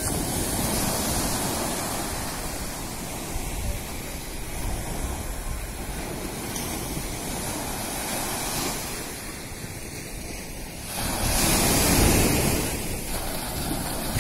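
Sea surf: small waves breaking and washing up a sandy shore in a steady rush, growing louder about eleven seconds in.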